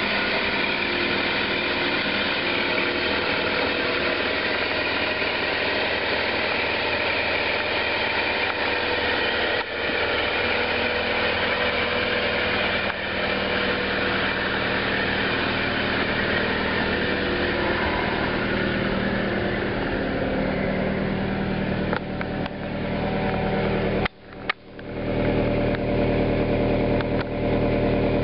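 2001 Kia Sportage's 2.0-litre Mazda FE inline-four idling steadily in its first minutes after a cold start. It is heard first from the engine bay; near the end, at the tailpipe, the low exhaust hum grows stronger.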